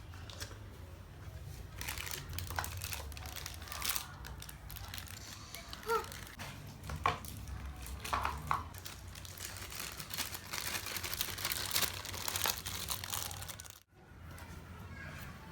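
Plastic wrapping of a Happy Meal toy crinkling and tearing as it is handled and opened, with irregular crackles. The sound cuts out for a moment near the end.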